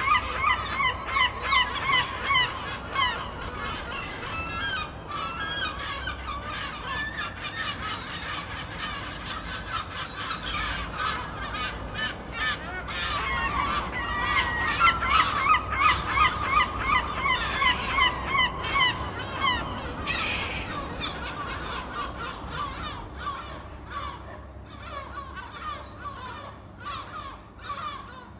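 A flock of gulls squawking, with many rapid, overlapping calls; the calling thins out and grows quieter over the last few seconds.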